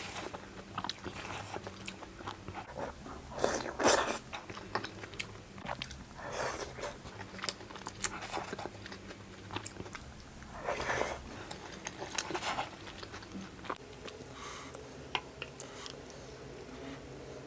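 Close-miked eating of hotpot food: irregular biting and chewing with crunchy clicks, the louder mouthfuls about 4, 11 and 12 seconds in.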